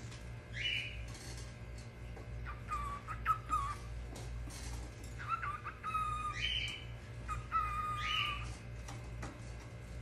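Lutino cockatiel singing: several short whistled phrases, some notes held steady and others sliding upward, repeated with brief pauses between. A steady low hum sits underneath.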